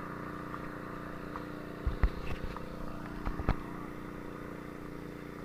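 An engine running steadily at a constant speed, with a few low thumps about two seconds in and again about three and a half seconds in.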